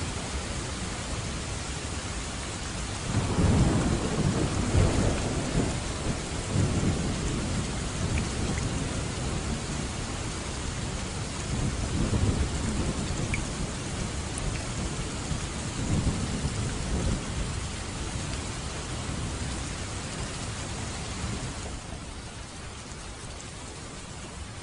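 Steady rain falling, with thunder rumbling in several low swells, the first and loudest about three seconds in and others following over the next fifteen seconds; the rain eases near the end.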